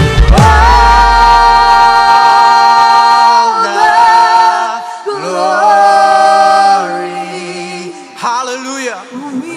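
Worship song sung without accompaniment: voices hold long notes, moving to a new pitch every second or two, after the band's last low note dies away in the first two seconds.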